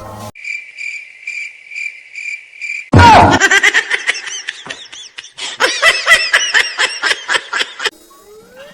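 Cricket chirping at an even pace for about three seconds. It is cut off by sudden loud laughter, with many high, rapidly rising and falling voices, which stops shortly before the end.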